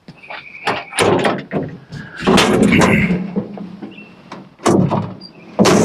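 Metal clanking, knocking and scraping from parts of a portable band sawmill's blade-guide assembly being handled, with several sharp knocks and a short metallic squeal.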